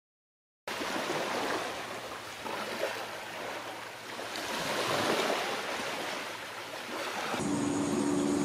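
Small waves washing onto a sandy beach, a rushing surge that swells and eases, starting abruptly a moment in. About seven seconds in it cuts to a steadier hiss with a low, steady hum.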